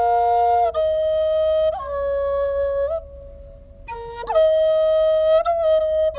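A flute playing a slow melody of long held notes that slide into one another, with a short breath pause about three seconds in before the next phrase.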